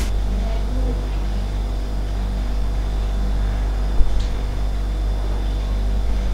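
Steady low hum, with one sharp click about four seconds in.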